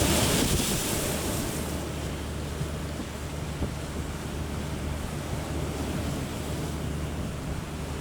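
Strong wind blowing across the microphone over rough harbour waves. A louder surge of wind and water comes in the first two seconds, then a steady rush with a low rumble underneath.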